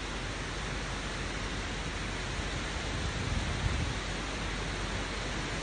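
Rushing water of a mountain stream cascading over rocks, a steady hiss, with a brief low rumble about three and a half seconds in.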